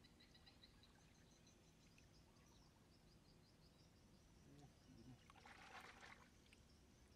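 Near silence: faint outdoor ambience with a run of faint high chirping, and one brief splash of water about six seconds in as a bucketful is poured out.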